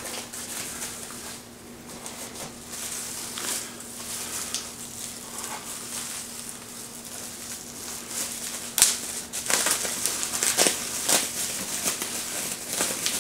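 Bubble-wrap plastic crinkling and crackling as it is handled, with a string of sharper, louder crackles from about nine seconds in.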